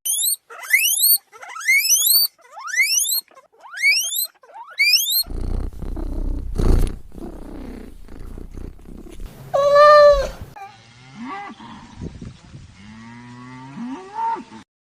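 A run of different animal calls: six short rising squeaks in quick succession, then a rough, rumbling stretch, one loud drawn-out call about ten seconds in, and lower calls near the end.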